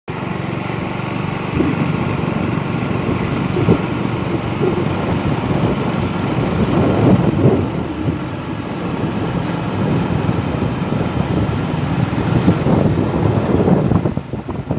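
Wind buffeting the microphone: a steady low rumble with irregular gusts. The level dips briefly near the end.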